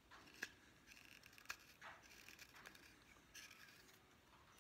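Faint whittling: a carving knife paring thin shavings off the back of a wooden spoon bowl, soft scraping strokes with a few small clicks.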